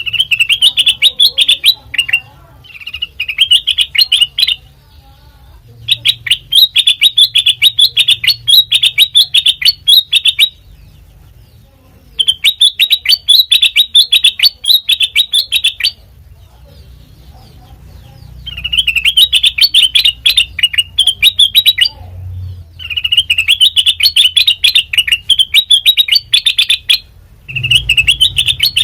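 Kutilang mas, a bulbul, singing loudly in rapid chattering phrases of quick repeated chirps, each phrase a few seconds long with short pauses between.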